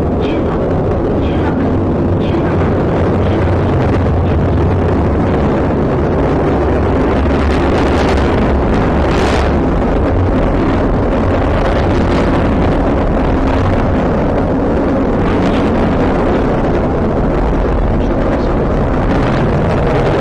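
H-IIA 202 rocket in powered climb, its LE-7A main engine and two solid rocket boosters at full thrust: a loud, steady, deep roar with crackles now and then.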